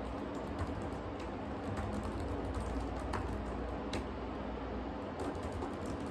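Fingers typing on a laptop keyboard: light key clicks at an irregular pace, over a steady low hum.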